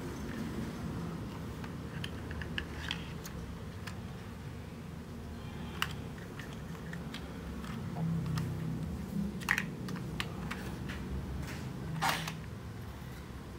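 Light plastic clicks and taps of hands handling toy construction vehicles (an excavator and a dump truck) on a tile floor, with louder clacks about nine and a half and about twelve seconds in. A low steady hum runs underneath.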